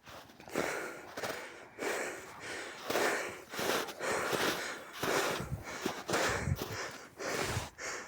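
Dogs snorting and huffing in a string of short, breathy puffs, about one a second.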